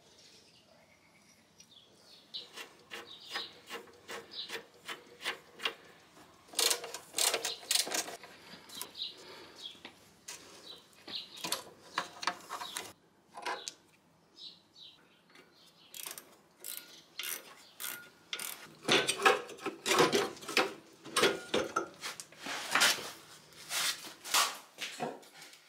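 Ratchet wrench clicking in quick runs while nuts on a motorcycle engine are loosened, with scattered metallic clinks of parts being handled; the clicking is loudest in the second half.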